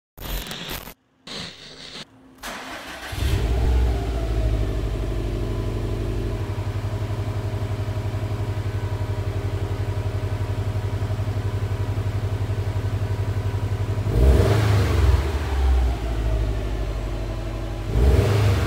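Subaru WRX STI's turbocharged 2.5-litre flat-four running through its stock factory exhaust. It idles steadily from about three seconds in, then is revved twice near the end, the second rev about four seconds after the first.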